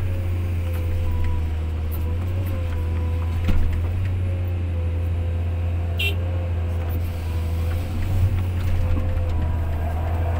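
Excavator diesel engine running steadily with a steady hydraulic whine, heard from the operator's cab as the boom swings. About six seconds in, the bucket tips a load of wet soil into a dump truck bed with a brief sharp clatter, and there is a single knock a few seconds earlier.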